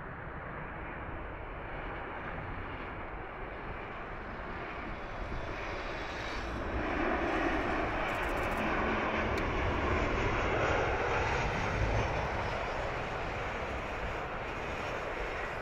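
Jet engines of an ANA Boeing 737 airliner landing. A steady rushing noise swells as the plane passes close, is loudest from about seven to twelve seconds in, and then eases off.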